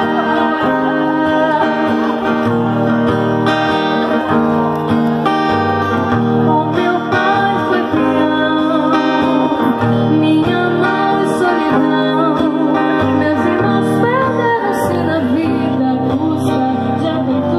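Music: a song with a singing voice over guitar accompaniment, playing steadily throughout.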